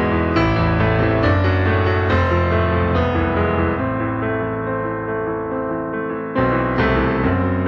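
Piano-led instrumental music: sustained chords with a low bass line, a new chord struck about six and a half seconds in.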